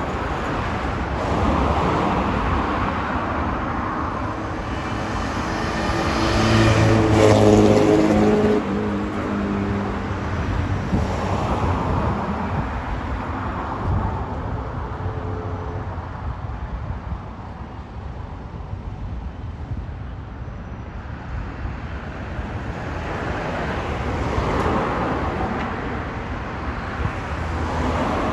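Engine-driven vehicles passing one after another over a steady outdoor rumble. The loudest goes by about seven seconds in, its engine note dropping in pitch as it passes.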